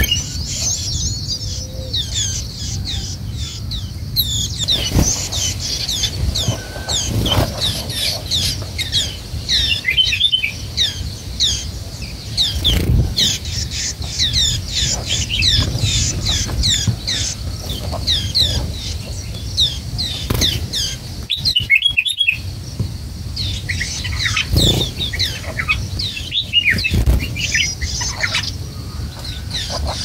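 White-eyes chirping at the nest: a near-continuous stream of short, high, downward-sliding chirps, with brief lulls about 4 and 22 seconds in. A low rumble with a few soft thumps runs underneath.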